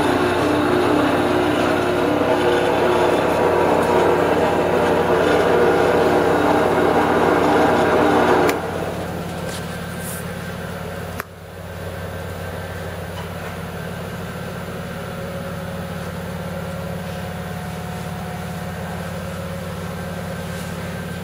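A 16-speed belt-drive drill press (ZJ4120) running, its 1 hp, 115 V motor and belt drive humming steadily. The sound is fuller and louder for the first eight seconds or so, then drops suddenly to a quieter steady hum, with a single click about 11 seconds in.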